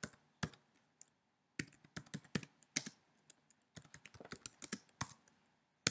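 Typing on a computer keyboard: irregular runs of keystroke clicks with short pauses between them, including a gap of about half a second a second in.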